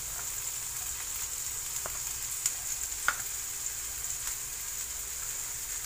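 Garlic, ginger, onion and freshly added chopped leeks sautéing in oil in a nonstick frying pan: a steady sizzle, with a few sharp ticks, the loudest about three seconds in.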